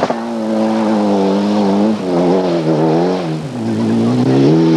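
Mitsubishi rally car engine running hard at high revs. Its pitch dips and climbs again about two seconds and three and a half seconds in.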